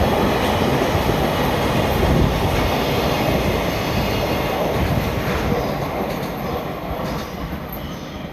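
A freight train passing, its wheels rumbling over the rails. The noise holds steady for several seconds, then fades over the last couple of seconds as the train draws away.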